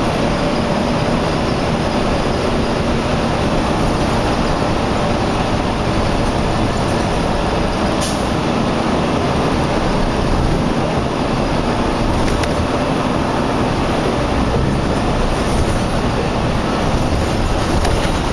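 Steady rumble of highway traffic, with a single sharp click about eight seconds in.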